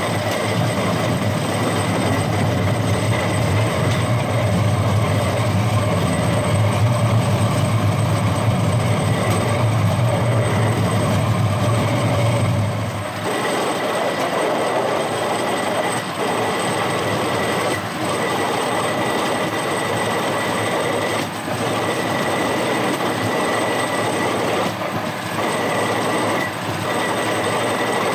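Rail-mounted golf cart running along railway track: a steady rolling rattle of its wheels on the rails, with a thin steady whine over it. A deep rumble underneath falls away about halfway through.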